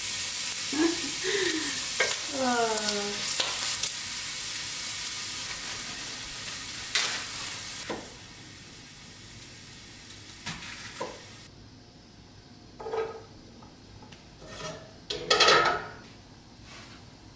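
Vegetables sizzling and being stirred in a frying pan on a gas burner turned up too high, loud at first, then fading away over the first half. A few short falling squeaks come in the first few seconds, and near the end a few knocks and clatters sound as a knife cuts vegetables on a cutting board.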